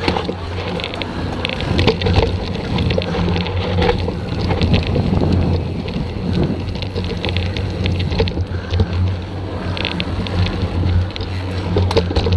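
Mountain bike riding down a dry dirt trail, recorded from its handlebars: tyres rolling and crunching over loose dirt and stones, with the bike's chain and frame rattling over bumps and wind on the microphone. A steady low hum runs underneath, and the knocks grow sharper near the end.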